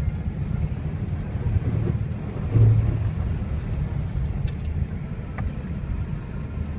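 Steady low rumble of a car driving, heard from inside the cabin, with a brief louder low hum about two and a half seconds in.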